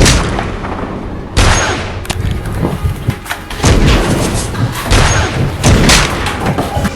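Gunfire in a shootout: about six loud shots roughly a second apart, each with a short echoing tail.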